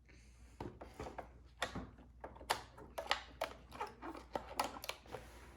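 Irregular clicks, taps and rustles of a cardboard box and plastic toy parts being handled while a toy kitchen set is taken out of its packaging.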